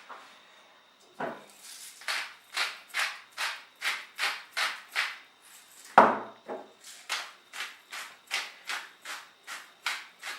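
Hand-twisted spice mill grinding seasoning in quick crunchy strokes, about three a second, in two runs. A single louder knock comes about six seconds in.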